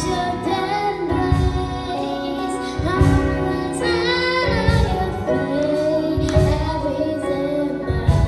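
Children's and women's voices singing a song over musical accompaniment with a steady low beat.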